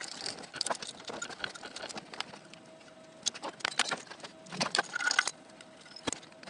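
Hand tools and metal parts clinking and knocking under a car: irregular sharp clicks and taps, in small clusters, as hands work at a bolted bracket beside the transmission.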